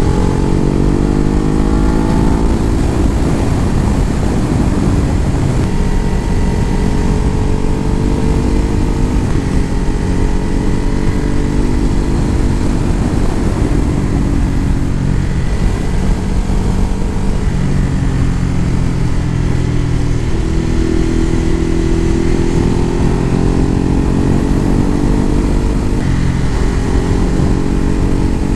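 Motorcycle engine running at road speed, its note rising as it accelerates just after the start and again about two thirds of the way through, with a constant rush of noise underneath.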